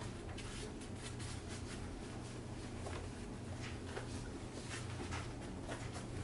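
Head of a Philips GC557/30 stand garment steamer brushing down a hanging dress shirt: a run of soft, irregular scratchy rustles of the plate on the fabric over a steady low hum.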